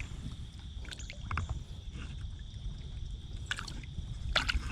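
Small fishing boat on the water: a steady low rumble of wind and water, broken by a few sharp clicks and knocks about a second in and again near the end.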